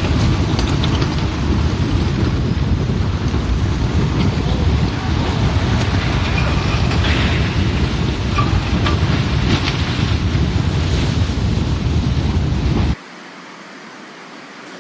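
Mudslide (debris flow) coming down a mountainside: a loud, continuous rushing rumble, heaviest in the low end. About thirteen seconds in it cuts off abruptly to a faint hiss.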